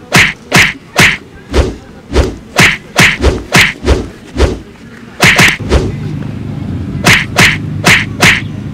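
Sharp hand slaps from a hand-slapping game, about eighteen of them in quick, uneven runs of two to four. There is a pause of about a second a little past the middle.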